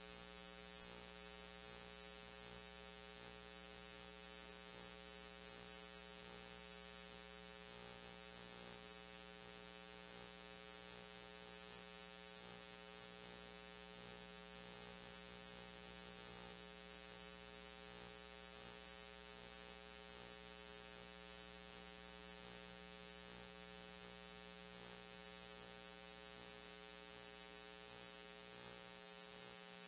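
Near silence: dead air on a NOAA weather radio broadcast, with only a faint steady hum of many overtones.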